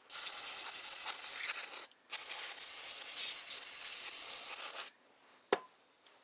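Aerosol spray can fired through its red extension straw onto a small brass carburetor part in two long hissing bursts, the second lasting nearly three seconds. A single sharp click follows near the end.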